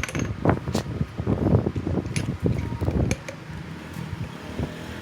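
Irregular heavy knocks and clunks of metal parts being handled and struck, for about three seconds, then a steady fan-like hum.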